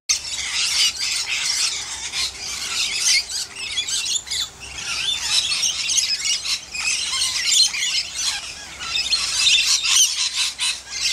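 Pet lorikeets chattering and screeching, with many quick, shrill, overlapping calls and no let-up.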